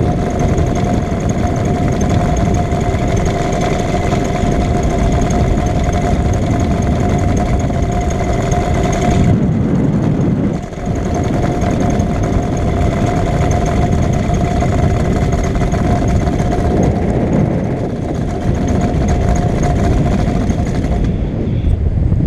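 Moster two-stroke paramotor engine and propeller running at a steady pitch in flight, with wind on the microphone. It falters for about a second roughly ten seconds in, then picks up again, and cuts out near the end, leaving mostly wind noise: the engine failing in flight.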